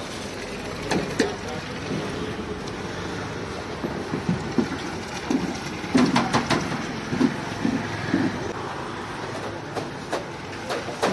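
Milk poured in a long stream from a raised steel mug into a wide, shallow steel pan of frothy milk, a steady splashing. A few sharp knocks about a second in and again around the middle.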